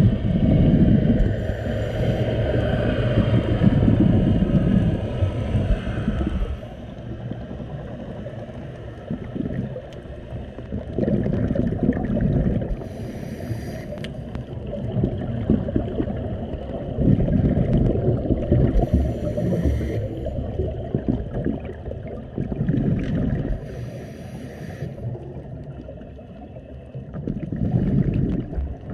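Scuba diver breathing through a regulator underwater: long rumbling bursts of exhaled bubbles every several seconds, with short hissing inhales between them.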